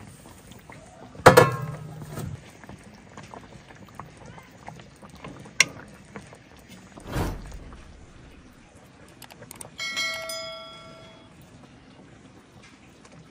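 Scattered knocks and handling clatter: a loud sudden sound about a second in, a sharp click, a low thud, and about ten seconds in a clear metallic clang that rings on for about a second.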